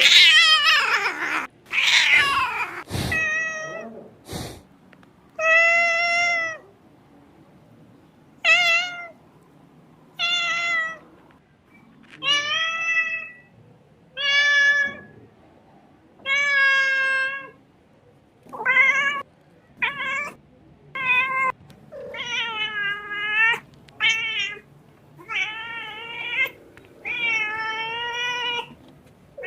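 Kitten meowing over and over in high-pitched cries, about sixteen separate calls one to two seconds apart. The first few are louder and harsher.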